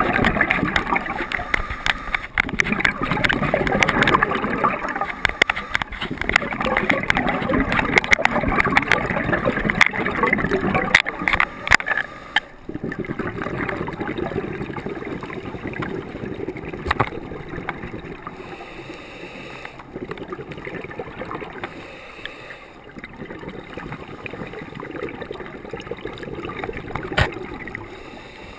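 Muffled underwater rushing and gurgling of scuba bubbles, heard through a camera's waterproof housing, with scattered sharp clicks. It drops sharply about twelve seconds in and carries on as a quieter, softer hiss.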